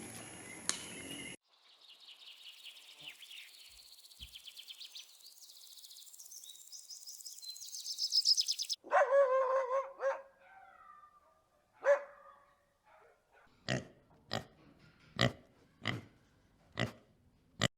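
A sequence of animal sounds. First a run of rapid, high chirps grows louder for several seconds. Then comes a pitched call about a second long, and near the end a dog barks in about six short, sharp single barks.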